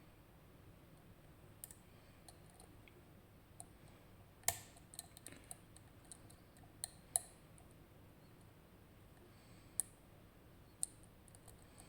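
Light metallic clicks from lock picks working the pins of a RUKO Garant high-security cylinder fitted with gin spool drivers. The clicks come irregularly, about a dozen in all, with the sharpest about four and a half and seven seconds in.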